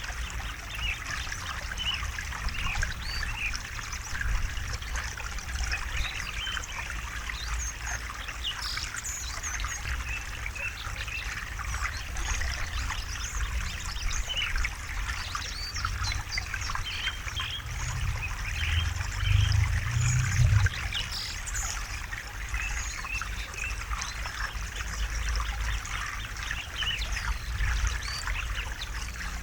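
A river or stream trickling and splashing steadily over stones, with small birds chirping faintly now and then. A low rumble swells briefly about two-thirds of the way through.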